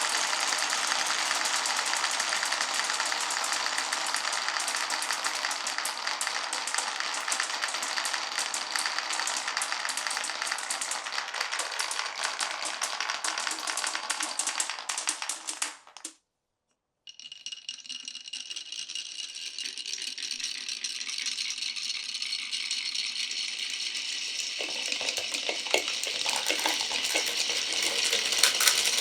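Many glass marbles rolling and clattering down a wooden marble run, a dense, continuous rattle of small clicks. It cuts to silence for about a second past the middle, then resumes thinner and higher, with fuller clicking again near the end.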